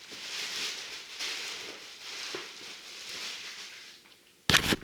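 Rustling and crinkling, uneven and in patches, like a plastic bread bag being handled while moldy bread is taken out to be thrown away. A sudden louder clatter comes near the end.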